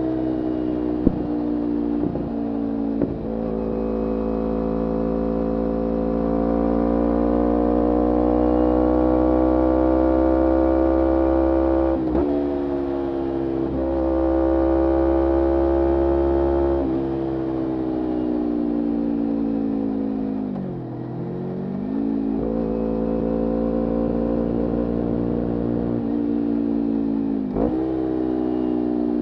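Kawasaki Ninja 250R parallel-twin engine through a full Graves Diamond racing exhaust, pulling under way. It shifts quickly through three gears at the start. Then come long pulls where the pitch climbs slowly and drops at each shift, near 12 s and 17 s and again near the end. Around two-thirds of the way in, the revs fall away deeply and then pick back up.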